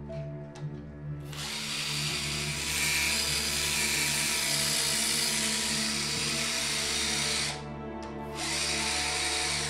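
Handheld cordless drill running in a long burst of about six seconds starting about a second in, stopping briefly, then running again near the end.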